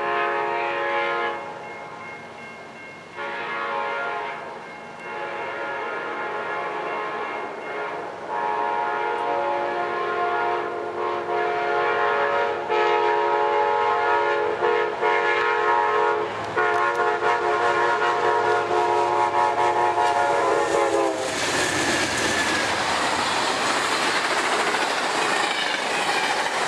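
Amtrak P42DC locomotive's five-chime K5LA air horn played as a horn salute: several blasts, then one long blast held for over ten seconds, its pitch dropping as the locomotive passes about twenty seconds in. Then the rumble and clatter of the passenger train rolling by.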